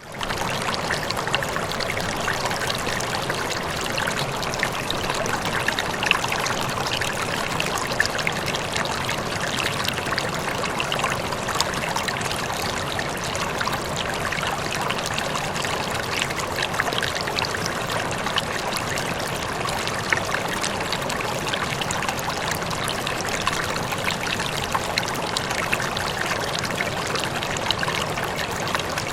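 Flowing water like a stream running steadily, a dense even rush with small splashes and trickles scattered through it. It swells in quickly right at the start.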